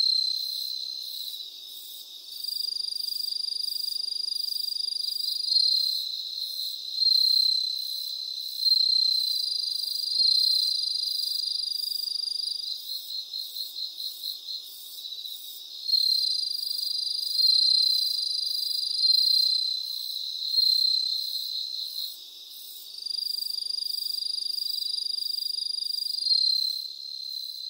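Crickets chirping at a high, pure pitch, in long trills of a few seconds between shorter chirps. A stretch of quick, even pulses comes about halfway through.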